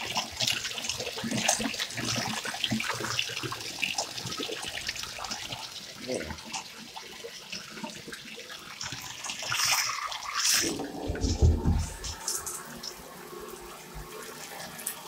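Water running from a bathtub tap, with splashing and small knocks as a puppy moves about in the tub. About ten seconds in comes a louder rush and a deep thump.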